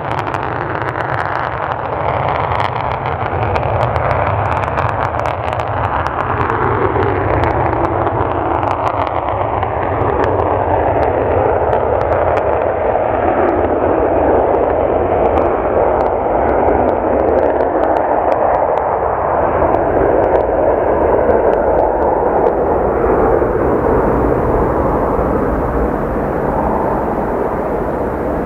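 Boeing 737-200 jetliner's twin JT8D low-bypass turbofans at takeoff power: a loud, continuous jet roar as it runs down the runway and lifts off. Faint tones in the engine noise slowly fall in pitch as the aircraft moves away.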